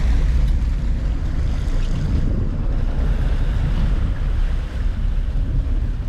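Steady low rumble of wind on the microphone and water noise aboard a sportfishing boat at sea.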